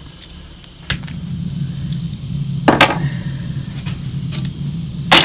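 Camping gas cartridge stove: a sharp click about a second in, then the burner's steady low rumble, with two more loud knocks later.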